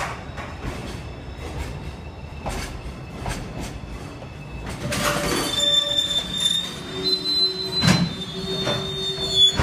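JR Freight container train's wagons rolling slowly past as it arrives, their wheels knocking over rail joints at uneven intervals. From about five seconds in a steady high squeal sets in from the wheels as the train slows, with a lower squeal beneath it. A single sharp clunk comes near eight seconds.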